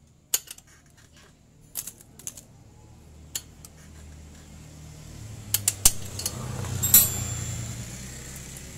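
Steel hand tools clinking and tapping against the valve adjuster of a Yamaha Mio engine as its lock nut is tightened with a ring spanner after the valve clearance has been set with a feeler gauge; a scatter of sharp metallic clicks, the loudest a cluster about six to seven seconds in. A low rumble builds through the middle and eases off near the end.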